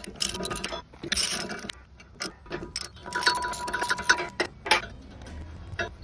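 Ratchet wrench clicking in irregular spurts as a chipper blade nut is turned, with metal clinks between.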